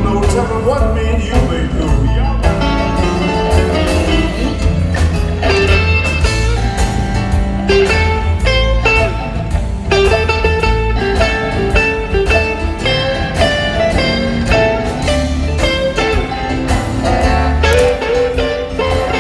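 Live electric blues band playing: amplified electric guitars trading lead lines over bass and drums with a steady beat.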